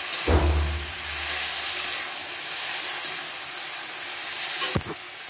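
Sliced potatoes and pointed gourd sizzling in oil in a metal kadhai while a metal spatula stirs and scrapes through them. A dull low thump comes soon after the start, and a sharp knock near the end.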